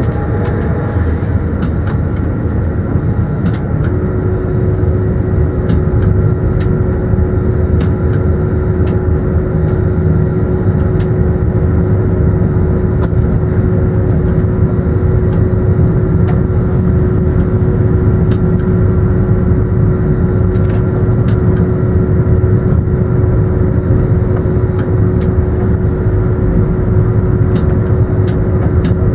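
Train running, heard from inside the locomotive cab: a steady low rumble with a steady whine that sets in about four seconds in, and scattered light clicks.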